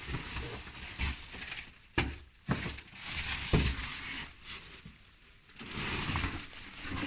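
Plastic bags rustling and crinkling as packed items are handled, with a few sharp knocks, the loudest about two and three and a half seconds in, as things are set down.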